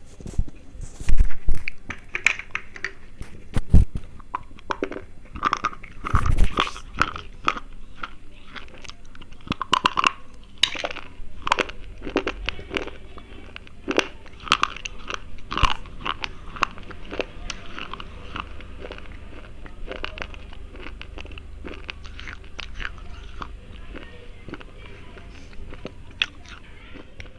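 Close-up crunching of thick slate pencils being bitten and chewed: a few loud sharp bites in the first seconds, then a run of crisp crunches that grow fainter and sparser in the second half as the chewing goes on.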